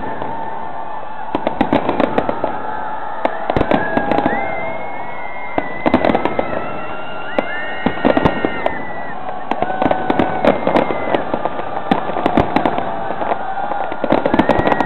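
Aerial fireworks bursting in rapid, irregular bangs and crackles, with several long, high, steady tones drawn out over them.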